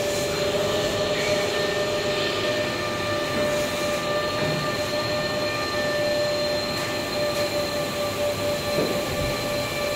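Beam 5R moving-head light running: steady cooling-fan noise with a steady whine over it.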